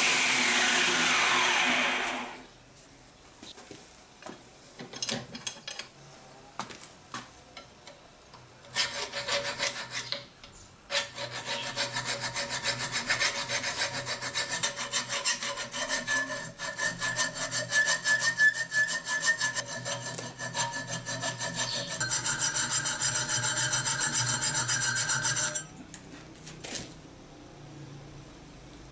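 A belt grinder winds down with a falling whine in the first two seconds. After a few scattered taps, a file scrapes back and forth in quick strokes, shaping a curved notch in a 5160 spring-steel knife blank clamped in a vise, and stops near the end.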